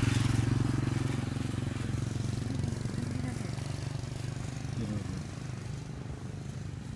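A motor vehicle's engine, most like a motorcycle's, running steadily nearby and slowly fading.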